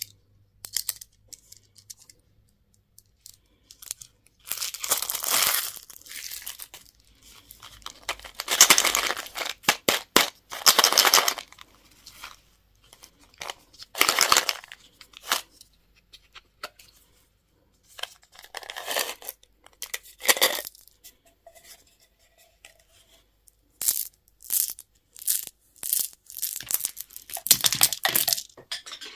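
Plastic packaging being torn open and crinkled in a series of crackling bursts of a second or two each, with short pauses between them.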